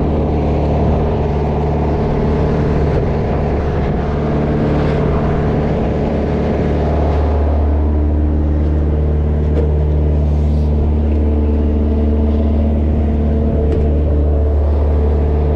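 Boat engine running steadily at a constant pitch, a loud low drone.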